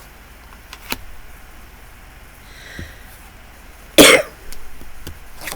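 A person coughing once, sharply, about four seconds in, after a quiet pause with a small click near the start.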